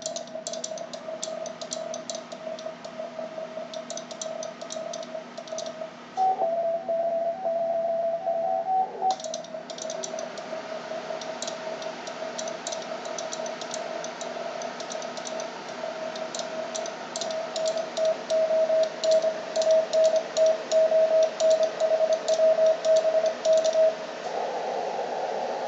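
Morse code (CW) from an HF amateur radio transceiver on the 17-metre band: a steady-pitched tone keyed on and off in dots and dashes over band static, with sharp clicks along with the keying. About six seconds in, a second, slightly higher tone overlaps for a few seconds. Near the end the keying stops and only the hiss of static remains.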